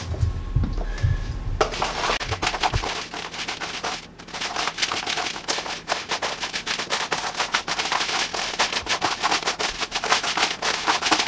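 A few dull knocks, then a spatula stirring sticky caramel-coated popcorn in a disposable aluminium foil pan: a dense, irregular crackling and crinkling from the foil and the coated kernels.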